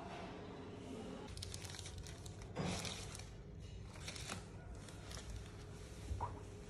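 Faint rustling with a few soft clicks, the clearest about two and a half and four seconds in, over a low steady hum.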